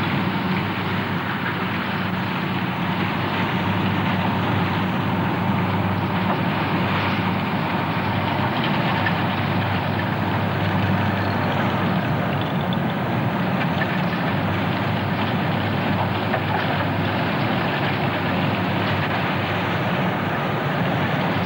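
Heavy ore-handling machinery running: a steady mechanical noise with a constant low hum, unchanging throughout.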